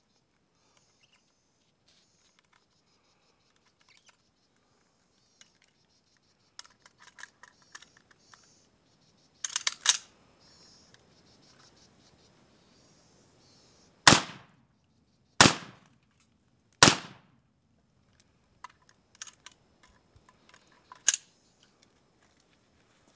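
A rifle is handled and loaded with metallic clicks and a sharp clack of the action. Then comes the loudest sound: three rifle shots a little over a second apart. More clicks and a clack follow as the rifle is cleared.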